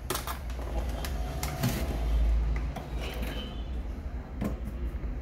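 Light clicks and clatter of small hard objects being handled on a workbench, with a dull low thump about two seconds in.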